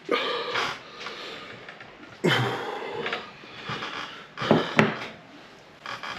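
A man sniffing, breathing hard and hiccuping from the burn of Carolina Reaper hot sauce, in a few separate sudden breathy bursts.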